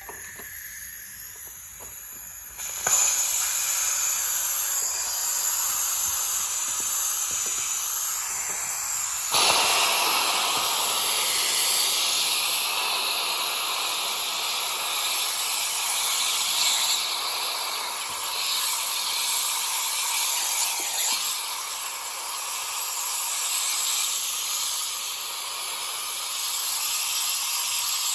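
Compressed air hissing out of the opened drain valve at the bottom of a Chiaperini 24-litre air compressor tank, spitting out the dirty condensate water that has built up inside. The hiss steps up louder about three seconds in and again about nine seconds in, then runs on steadily.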